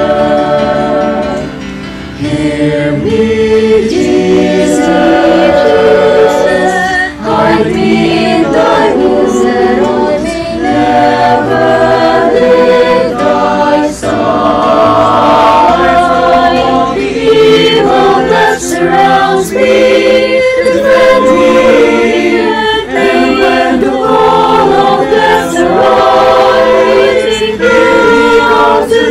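Mixed choir of young women's and men's voices singing a slow song in several-part harmony, with a brief breath pause about two seconds in.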